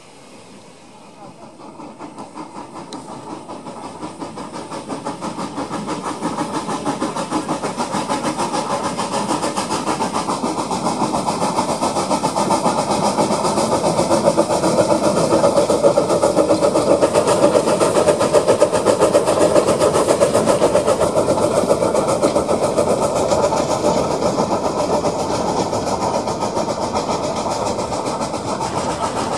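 Narrow-gauge steam locomotives hauling a passenger train, their exhaust chuffing in a fast, even rhythm that grows steadily louder through the first half as the train draws near, then holds.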